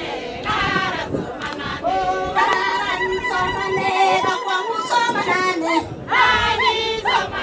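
Women's group singing a traditional song together, holding long notes through the middle, with high wavering voices near the end.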